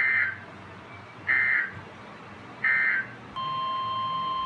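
Three short bursts of Emergency Alert System digital data tones (SAME burst signal), the end-of-message code after a NOAA Weather Radio warning. About three and a half seconds in, the steady single-pitch NOAA Weather Radio warning alarm tone starts and holds.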